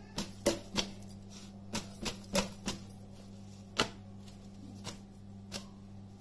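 Hands slapping and crushing a stack of freshly cooked parottas together to open up their flaky layers: a dozen or so sharp, irregular slaps, with a steady low hum underneath.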